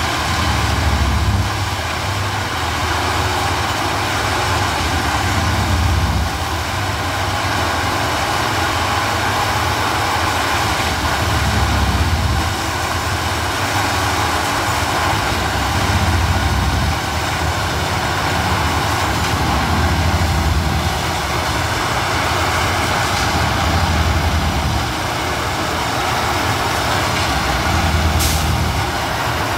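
Plasser & Theurer 08-32 U ballast tamping machine at work: its engine runs steadily while heavier low surges come about every four to five seconds, one tamping cycle each as it packs the ballast under the new track. A short hiss of air near the end.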